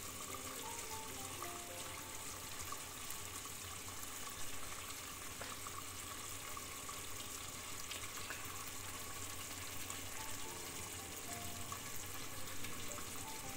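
Faint background music, a slow melody of held notes, over a steady hiss from the pot cooking on the gas stove, with a light click or two near the middle.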